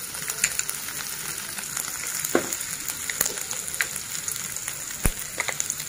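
Minced ginger sizzling in hot oil in a nonstick wok: a steady frying hiss with scattered small pops and crackles, and one sharp click about five seconds in.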